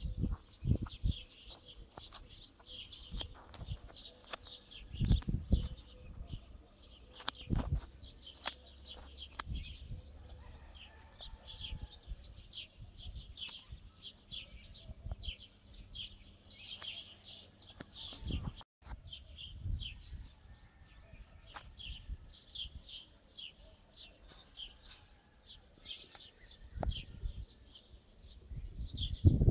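Many small birds chirping in a dense, steady twittering. A few low bumps on the microphone stand out, the strongest about five and seven seconds in.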